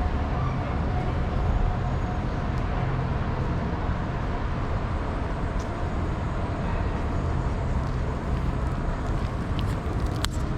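Steady low rumble of city traffic and background noise, with a few sharp clicks near the end.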